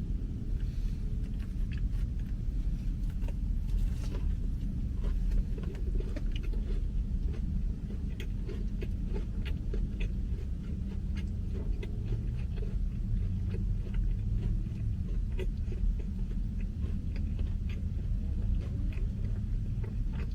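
Person chewing a spicy chicken sandwich close to the microphone: many short, irregular mouth clicks and smacks over a steady low rumble.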